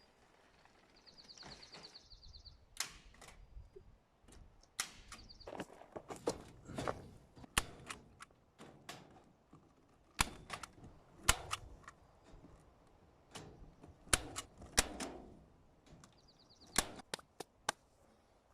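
Irregular sharp snaps of a staple gun fastening hardware cloth to a wooden quail coop, about twenty shots at uneven intervals. A short, fast high rattle comes twice, once about a second in and once near the end.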